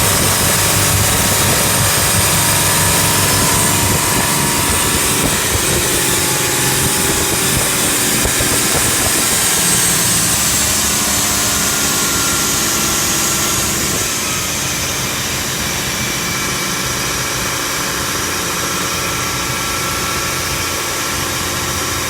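A boat's 4.2-litre turbodiesel running steadily under way after an injection pump repair. It gets a little quieter about two-thirds of the way in.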